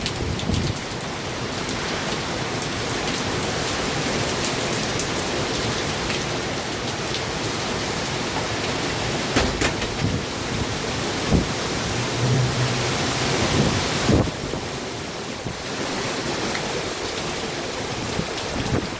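Hurricane rain and wind: a steady, loud rush of noise with a few sharp knocks.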